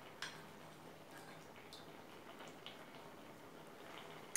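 Quiet room tone with a few faint light clicks of a steel spoon against a small glass bowl of cornflour slurry, and one sharper click right at the end.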